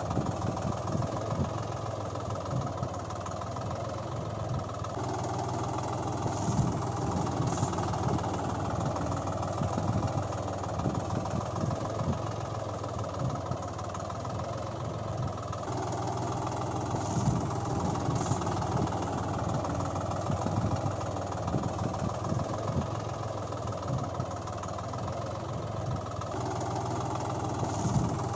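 Tractor engine sound effect laid over the toy tractor footage, running steadily with a rough chugging beat. Its tone changes abruptly three times, where the recording is cut or looped.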